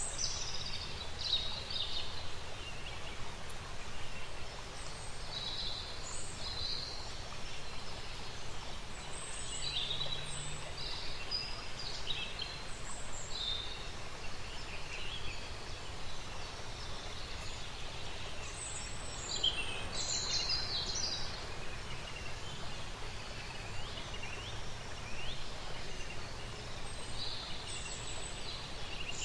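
Countryside ambience: a steady background hiss with birds chirping and calling on and off, short high calls coming in clusters.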